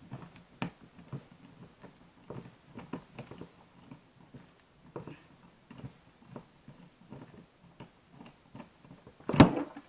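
Scattered small clicks and knocks of tape-measure parts being handled and worked apart. About nine seconds in comes one loud thud of something striking the desk hard enough to chip it.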